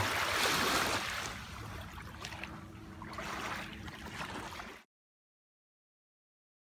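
Small waves lapping on a pebbly lake shore, an even splashing hiss that cuts off to complete silence about five seconds in.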